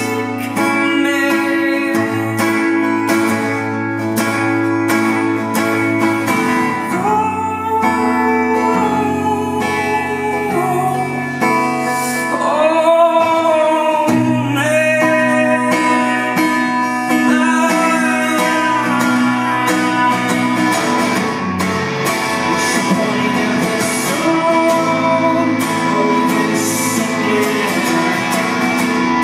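Acoustic guitar strummed steadily under a male voice singing long, sliding notes, mostly through the middle.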